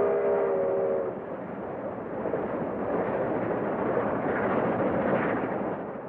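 Steam locomotive whistle sounding a held chord of several tones that cuts off about a second in. It is followed by the steady rushing noise of the 4-6-2 locomotive running, which fades out near the end.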